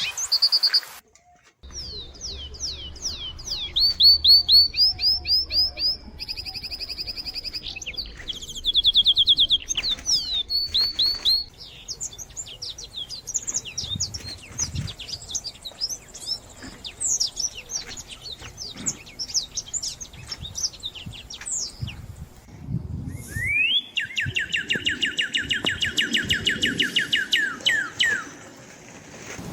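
Songbirds singing, several songs overlapping: quick chirps, sweeping notes and fast trills, ending in a long run of rapid repeated notes.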